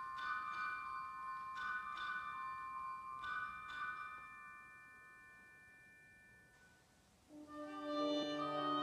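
Wind ensemble music: a few soft, ringing mallet-percussion notes are struck and left to die away over several seconds. Near the end the winds enter together with a sustained chord that swells.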